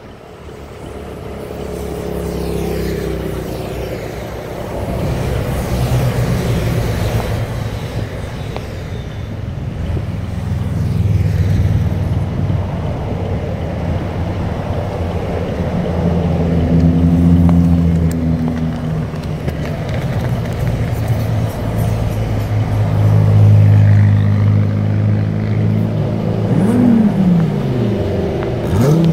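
Highway traffic driving past: car and truck engines and tyres swelling and fading as vehicles go by. Near the end one vehicle passes close, its engine pitch dropping as it goes by.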